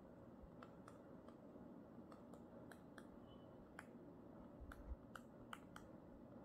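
Near silence with faint, irregular clicks and taps of a marker pen writing on a whiteboard, coming more often near the end.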